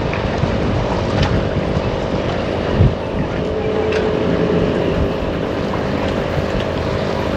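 Steady drone of an engine holding several steady tones, with wind rumbling on the microphone and a brief thump about three seconds in.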